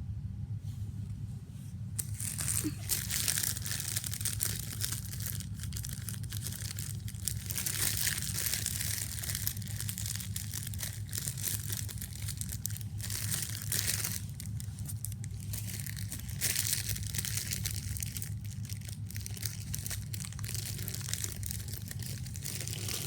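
Foil trading-card packet wrappers being crinkled and crumpled by hand, starting about two seconds in and going on in uneven surges, over a steady low hum.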